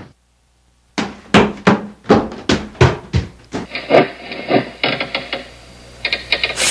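A rapid series of about eight to ten sharp knocks on wood over two and a half seconds, coming a little faster toward the end.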